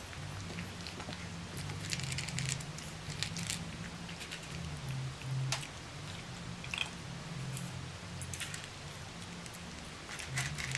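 Boston Terrier puppies crunching and chewing dry kibble from a metal pan, as a scatter of short, sharp crackles.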